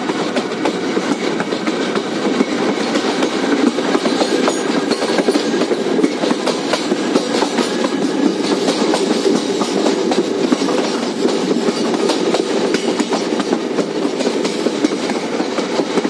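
Passenger train coach running along the track, heard from the side of the moving coach: a steady, loud rumble with a continuous rapid clatter of wheels on the rails.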